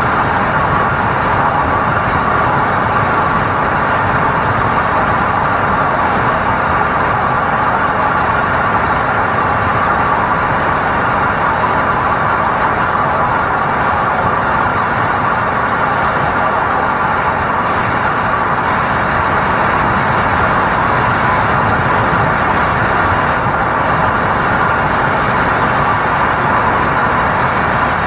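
Tyre and road noise from a 2010 Lexus IS250 driven at highway speed, heard from inside the front wheel well: a steady, loud rush with no distinct knocks or clunks from the suspension.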